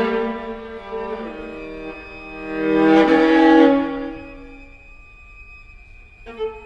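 Two violas playing a duet of held, bowed notes in several voices, swelling to a loud peak about three seconds in and then dying away to softer sustained tones, with a short sharp accent near the end.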